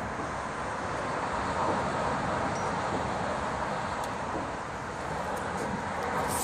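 Steady outdoor background noise, an even hiss with no distinct source, with a few faint light ticks.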